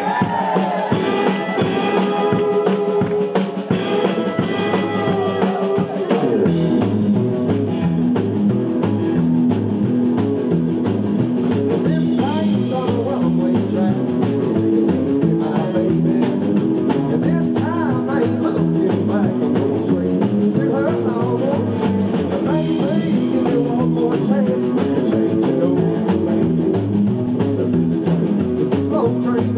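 Live rockabilly band playing: upright double bass, drum kit, acoustic and electric guitars, with a male singer. About six seconds in, the bass line comes in under the voice and the band settles into a steady beat.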